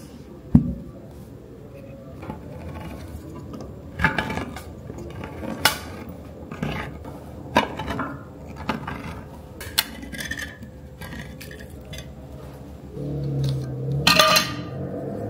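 Tin can being opened with a handheld can opener: a knock as the can is set down, then a sharp metal click every second or so as the opener is worked around the rim. Near the end comes a louder stretch of metal grinding and a bright metallic ring as the cut lid is pulled off.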